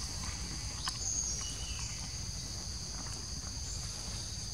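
Steady, high-pitched insect chorus droning without a break over a low rumble, with a faint click about a second in.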